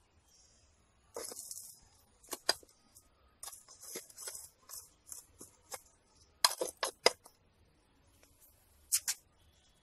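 A small metal hand tool scraping and digging through gritty potting soil in clay pots, with sharp clinks, as the soil at the base of petunia plants is loosened. The scrapes come irregularly, loudest in a cluster a little past the middle and again near the end.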